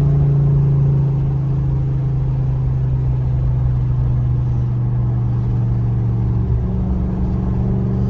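Audi S8 with catless downpipes and a 5-inch intake cruising at steady light throttle. A steady low exhaust note runs without revving, heard from inside the car.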